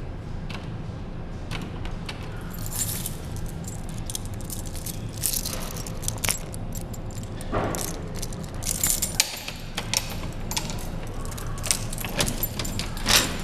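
Keys jangling and clicking again and again over a steady low hum.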